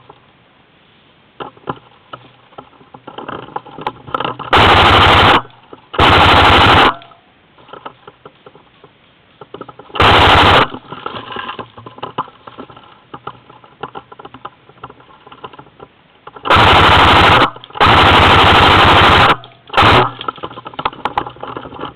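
Airsoft AK-74 replica firing full-auto, six short bursts of rapid shots with pauses of a second to several seconds between them. The last burst is the briefest.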